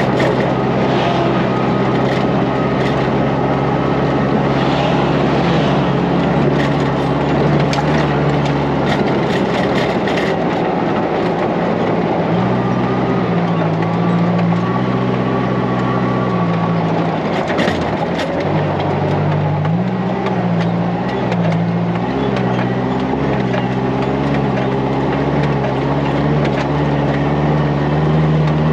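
Engine of a 1999 Chevrolet Tracker-based buggy running hard at speed on a bumpy dirt trail, its note stepping up and down several times with throttle and gear changes. Rattles and knocks from the chassis come mostly in the first half, over steady road and wind noise.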